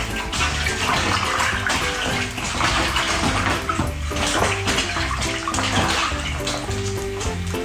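Water running or splashing steadily, over background music.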